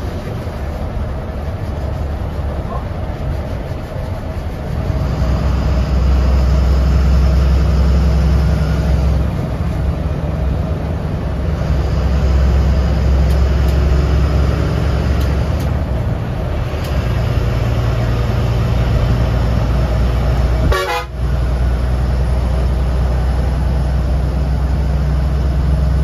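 BS6 diesel bus engine running under load, heard from the driver's cabin. It gets louder about five seconds in as the bus picks up speed, eases off twice, and drops out briefly near the end.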